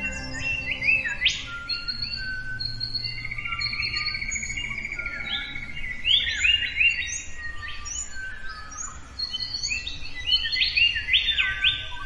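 Several songbirds singing and chirping with overlapping whistles, and a long trill about three seconds in, over a low steady hum.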